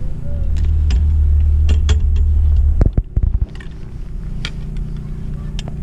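Riding a fixed-grip Doppelmayr chairlift: a steady low rumble with scattered sharp clicks and creaks. A heavier low rumble in the first half cuts off abruptly about three seconds in.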